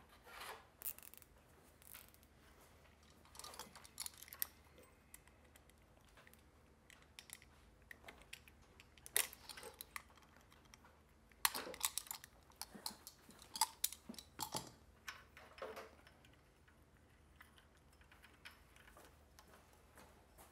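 Faint clicks and short rustles of small plastic parts being handled: a nylon cable tie pulled tight around wiring connectors and its tail snipped off, with scattered sharp plastic clicks.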